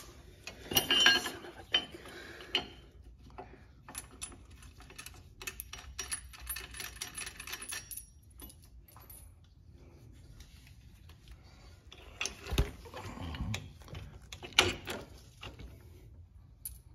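Small metal parts clicking and clinking in short, irregular bursts as a sway bar end link and its bolt hardware are handled and fitted to the bracket, with louder clatters about a second in and again late on.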